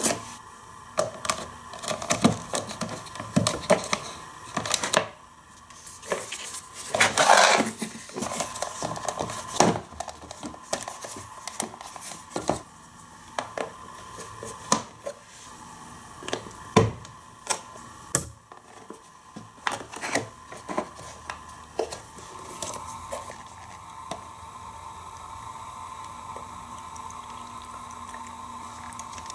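Hard plastic pieces of a Hot Wheels Race & Rinse car wash playset clicking, clacking and knocking as they are handled and fitted together, with a longer scraping rustle about seven seconds in. The clicks thin out in the last several seconds.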